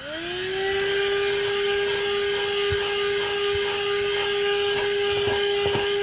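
12V AutoGrandpa handheld car vacuum cleaner switched on. Its motor whine rises in pitch over the first second as it spins up, then runs steadily as the nozzle works along the car carpet, with a few faint ticks.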